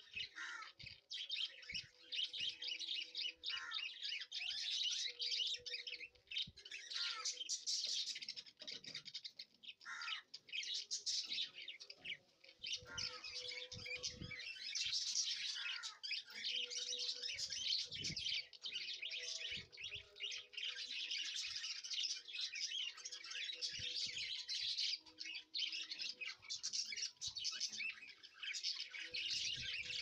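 Many small birds chirping and twittering continuously, a dense chorus of short high calls with an occasional falling whistle-like note. Occasional soft low thumps sound beneath it.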